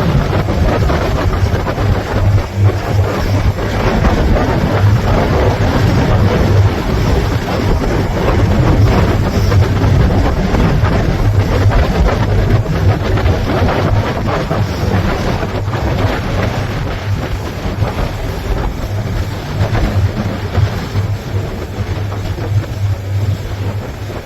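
Boat engine running steadily, with wind rumbling on the microphone.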